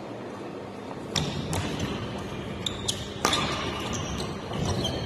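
Badminton rally on an indoor court: sharp racket strikes on the shuttlecock and footfalls, the loudest crack a little over three seconds in, with short high squeaks of court shoes on the floor.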